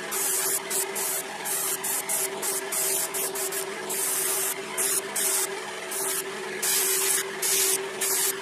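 Airbrush spraying in short, uneven bursts of hiss as the trigger is worked on and off, over the steady hum of its air compressor.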